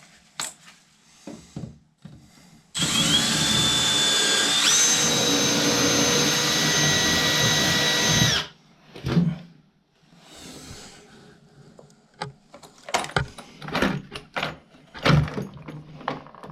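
Power drill boring out a hole to a larger bit size, running for about five seconds with a steady whine that steps up in pitch partway through. Then a few knocks and clatter near the end.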